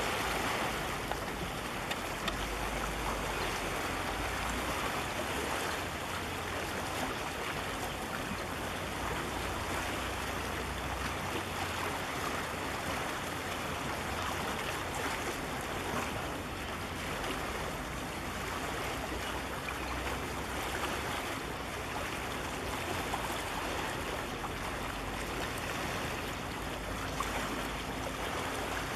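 Steady rushing noise of wind and sea water washing against breakwater rocks, with low rumbles of wind on the microphone now and then.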